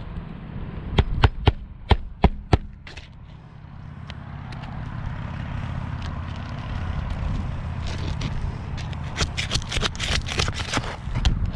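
Steel claw hammer striking roofing nails into asphalt shingles: a run of about six sharp blows a second or so in, then a quicker flurry of lighter taps near the end, over a low steady rumble.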